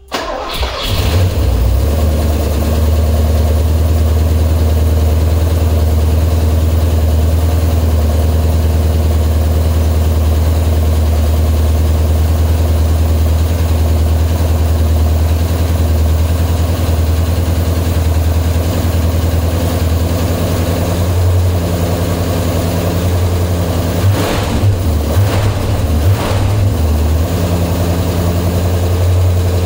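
Cold start of a 1980 Porsche 928's V8: it catches within about a second and settles into a steady idle. The idle wavers briefly about three-quarters of the way through.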